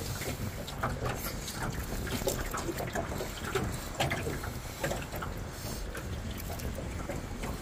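Kina (New Zealand sea urchin) being pried and cracked open by gloved hands: irregular crackles, clicks and wet squelches of shell and spines, over a steady low rumble.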